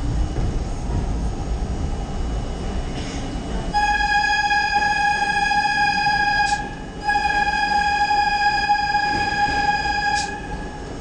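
R32 subway train running in the tunnel, with a loud, steady high-pitched tone sounding twice: about three seconds, a short break, then about four seconds more.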